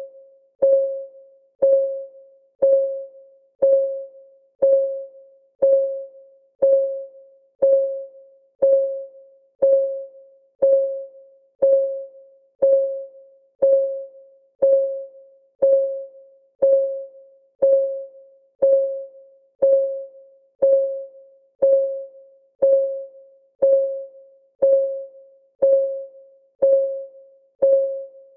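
Clock ticking sound of a countdown timer: about one short tick a second, each with a brief pitched ring that dies away quickly.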